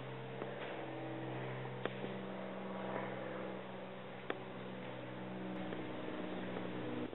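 A steady machine hum made of several low, fixed tones, with a few faint clicks; it cuts off abruptly near the end.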